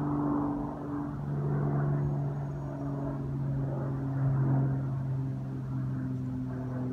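Cessna 310's twin six-cylinder piston engines and propellers droning steadily overhead, a low hum with a fainter, higher tone above it.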